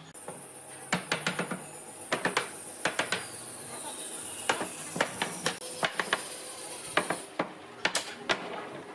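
Wood being struck with a hand tool: an irregular series of sharp knocks, coming in clusters of several strokes a second.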